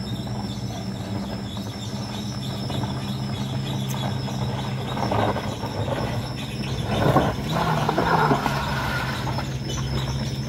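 A small MPV's engine runs steadily as it climbs a rough gravel road, its tyres grinding and scrabbling over the loose stones and potholes. The grinding gets louder about five seconds in and again around seven to eight seconds in.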